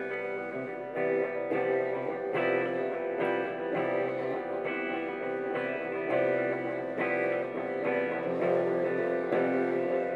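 Live band playing an instrumental passage, led by electric guitar strumming sustained chords about twice a second.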